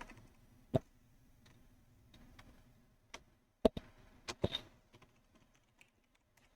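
Computer keyboard keystrokes: a few scattered taps, most of them in a short cluster a little past the middle, with quiet between.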